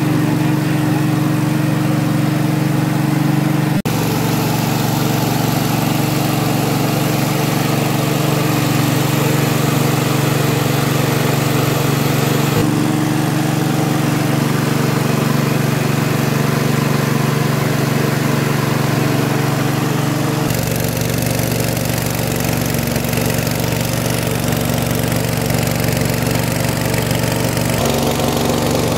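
Small household-scale rice milling machine running steadily under load with an even motor drone; the drone's pitch shifts abruptly a few times.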